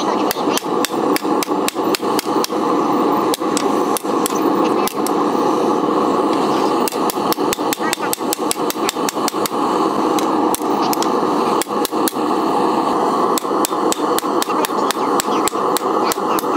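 Hand hammer forging hot 5160 leaf-spring steel on a railroad-track anvil: quick, ringing metal-on-metal blows, about three to four a second, over a steady rushing noise.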